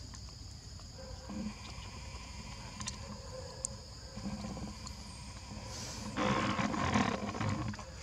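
Faint steady high-pitched chirring of evening insects. A few soft low knocks come in the middle, and a louder stretch of scuffling noise about six seconds in lasts a second and a half.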